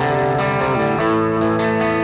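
Electric guitar, a Les Paul with humbucking pickups, played through a Marshall tube combo amp: sustained ringing chords, changing to a new chord about a second in.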